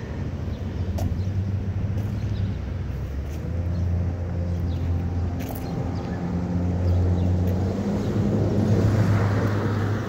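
A steady low engine drone, its pitch shifting slightly as it runs, with a few light clicks.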